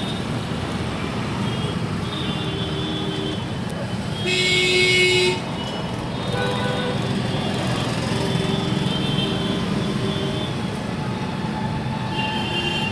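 Road traffic noise with a steady low rumble and vehicle horns sounding now and then. One loud horn blast about four seconds in lasts about a second.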